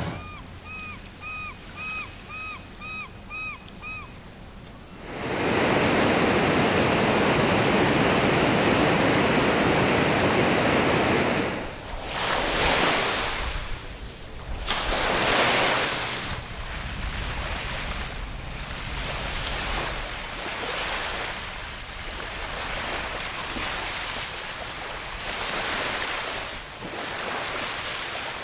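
Ocean surf breaking on a rocky shore: a loud rushing wash that swells twice as big waves crash a few seconds apart, then settles to a softer steady wash of water. It opens with a quick run of about eight short chirps before the surf comes in suddenly.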